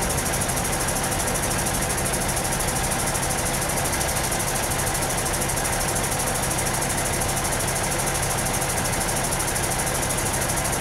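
An engine idling steadily, with a constant high-pitched hiss over it.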